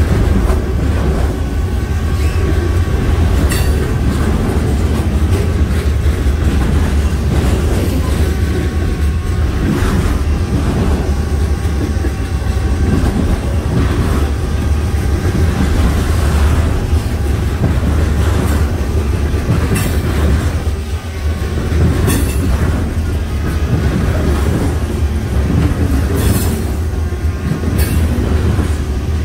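CN freight train rolling past, with a steady heavy rumble and wheels clicking over rail joints every few seconds.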